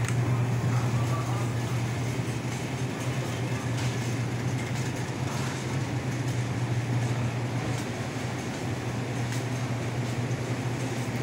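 Steady low hum with an even rush of air from a supermarket's open-front refrigerated display cases.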